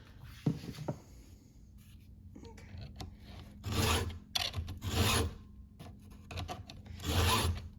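Stihl 2-in-1 chainsaw file guide rasping along a saw chain in three main strokes, with fainter scrapes between them. Its round file sharpens the cutter while its flat file takes down the raker in the same stroke.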